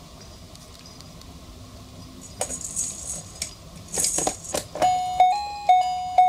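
Baby-toy rattling with bright clicks and jingles, then about five seconds in a simple electronic toy tune starts, plain beeping notes stepping up and down.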